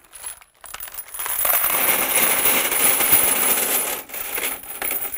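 Fired .308 brass cartridge cases poured out of a plastic sifter basket onto a case-dryer tray: a dense metallic clattering for about three seconds, then a few scattered clinks as the cases are spread out by hand.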